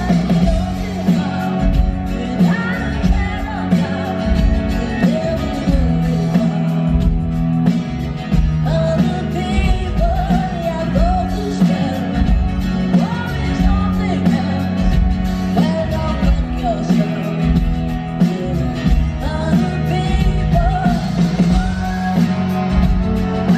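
A live band performing: a singer's voice over strummed acoustic guitar and drums, heard from the crowd.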